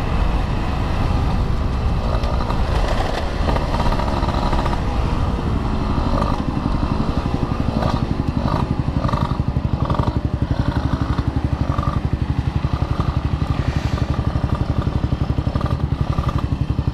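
Old two-stroke motorcycle engine running as the bike is ridden. About halfway through it eases off and settles into an even, pulsing beat as the bike slows for a red light.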